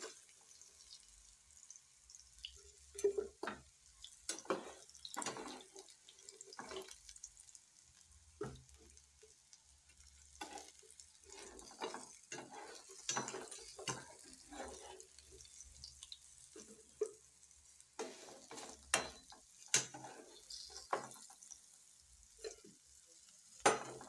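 A metal slotted spoon scraping and clicking irregularly against a non-stick frying pan as fried pieces are turned and lifted out, over a faint sizzle of shallow oil.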